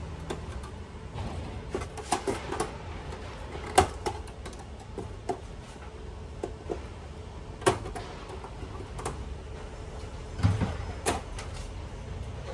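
Hand tools and hands working the metal frame of an LED TV panel during disassembly: scattered sharp clicks and knocks, the loudest about four and eight seconds in, with a duller thump near the end.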